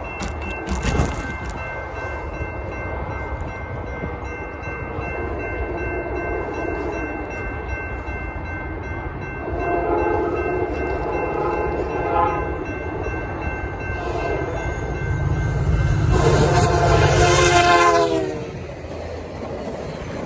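Level-crossing bell ringing steadily as a VIA Rail passenger train approaches. The locomotive's horn sounds two blasts about ten seconds in, then a louder long blast that drops in pitch as it passes. The rumble and clatter of the passing coaches follows.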